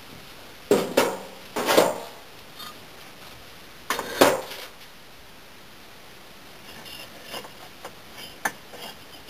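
Kiln brick splits being handled and stacked: hard clacks and scrapes of brick set down on brick, in three loud clusters in the first half, then lighter clicks near the end.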